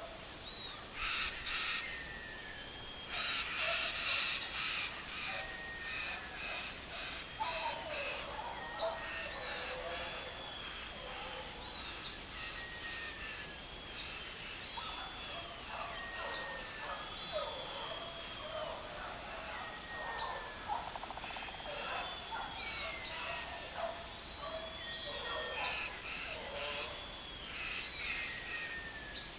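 Many birds calling at once, among them blue-black grassquits: a busy scatter of short arching and falling chirps, over a steady high-pitched tone.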